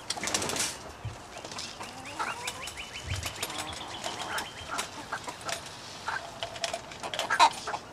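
Chickens clucking and birds calling around a coop, mixed with light clicks and rattles of feed being tipped from a plastic cup into a wooden feeder. A fast run of high ticks sounds about two seconds in, and the loudest sharp calls come near the end.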